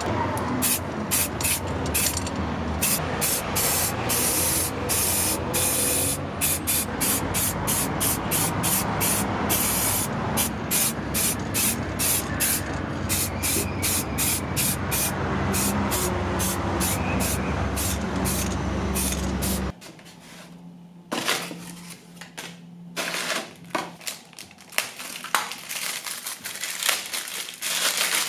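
Paint sprayer hissing in rapid short bursts over the steady hum of its air compressor. Both stop suddenly about 20 seconds in, leaving quieter clicks and taps.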